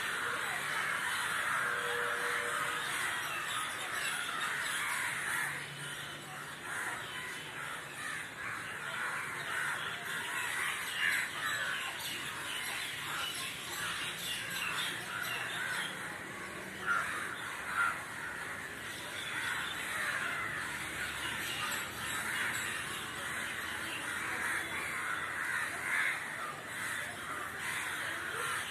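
A large flock of crows cawing together in a continuous, overlapping clamour, with a few louder single caws standing out above the din.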